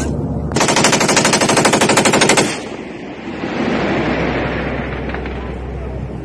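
Light machine gun firing one sustained burst of about two seconds, a rapid train of shots, followed by a few seconds of rushing noise that fades.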